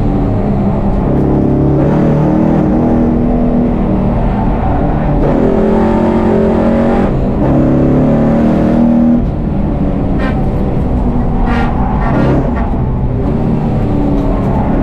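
1000 hp VF Commodore race car's engine at full throttle, heard from inside the cabin, its pitch climbing and dropping through gear changes, with a brief lift about nine seconds in followed by a few sharp exhaust crackles. The exhaust is loud enough to break the track's 95 dB noise limit.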